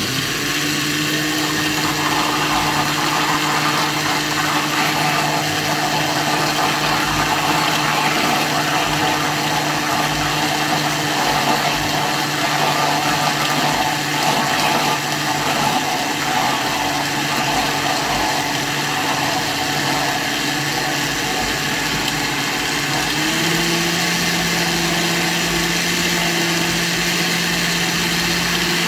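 Countertop blender motor running steadily, mixing a thick, heavy flour-and-milk batter that takes a powerful blender to handle. Its hum steps up slightly in pitch about 23 seconds in.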